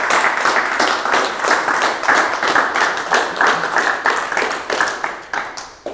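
A small audience applauding, with many hands clapping, dying away near the end.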